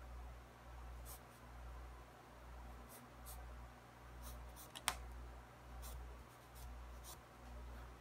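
Pencil drawing on sketchbook paper: short, light scratching strokes, with one sharper tick about five seconds in. Underneath runs a low hum that swells and fades about once a second.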